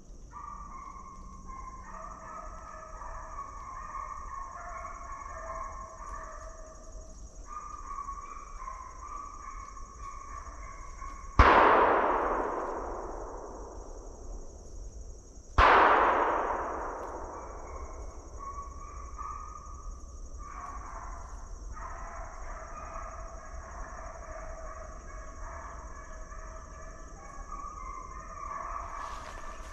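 Two gunshots about four seconds apart, each echoing through the woods for a couple of seconds. Hounds bay steadily in the distance around them.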